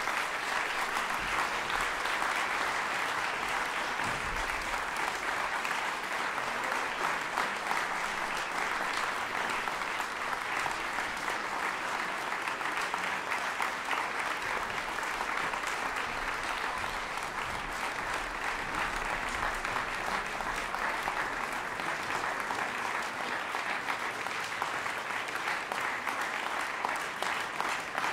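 Audience applauding: dense, steady clapping from a seated crowd.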